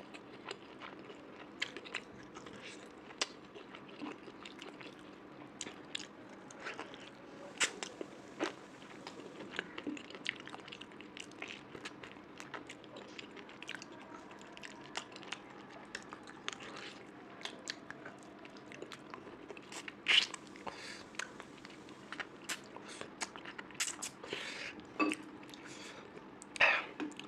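A person chewing and biting food close to the microphone: steady wet mouth clicks and crunches, with a few louder crunchy bites about two-thirds of the way in and near the end.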